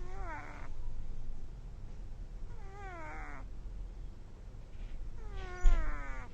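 A kitten snoring: three high, pitched sounds, one on each breath about two and a half seconds apart, each falling in pitch. A short thump comes near the end.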